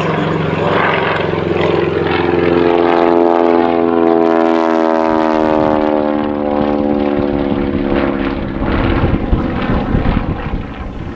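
Propeller aircraft flying past, its engine note sliding down in pitch as it goes by and then fading into the background noise.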